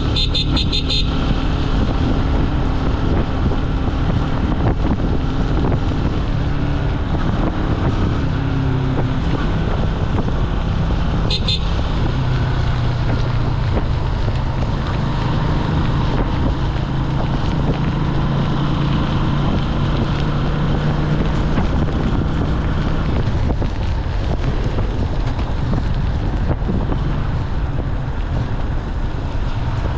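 Jialing 150 cc motorcycle engine running under way, its pitch stepping up and down every few seconds with speed and gear changes, with wind noise on the microphone. A short run of high-pitched beeps sounds just after the start and again briefly about eleven seconds in.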